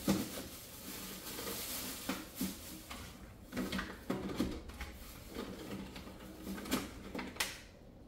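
Groceries being put away in a refrigerator: scattered light knocks and clicks of containers set on the shelves and door bins, with plastic packaging rustling.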